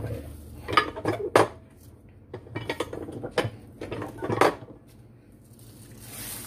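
Cast-iron tortilla press clanking as its lid is closed and the lever handle is pulled down to flatten a ball of masa: several sharp metallic knocks, then a short rustle of the plastic sheet near the end as the press is opened.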